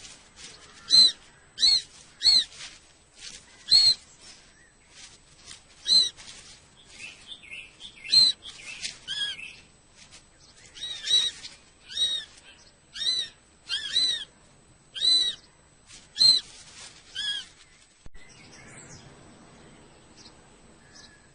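Kestrels calling: a series of short, sharp, high-pitched calls about a second apart, which stop a few seconds before the end.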